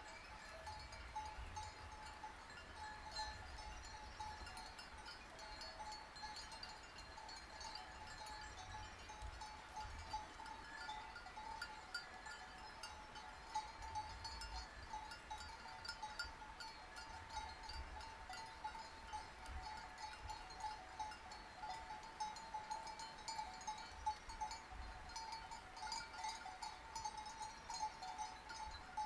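Sheep bells clanking and ringing without pause as the flock moves, many small overlapping clinks.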